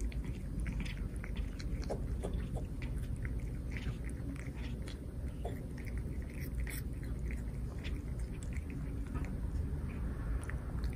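Cat chewing small pieces of raw apple: a run of soft, irregular crunching clicks from its jaws.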